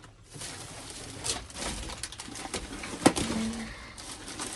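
Rummaging through trash in a dumpster: irregular rustling and small clatters, with one sharp knock about three seconds in.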